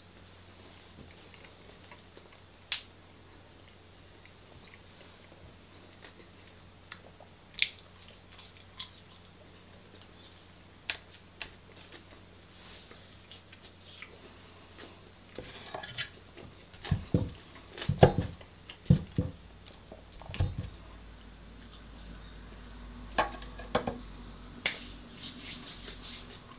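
A person eating from a wooden chopping board: quiet chewing, scattered sharp clicks of cutlery on the board, and a run of louder knocks and thuds on the board and table about two-thirds of the way in.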